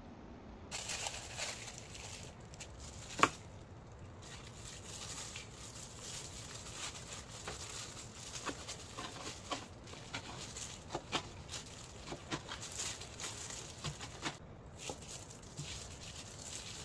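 Irregular light clicks and rustling of things being handled, with one sharp click about three seconds in.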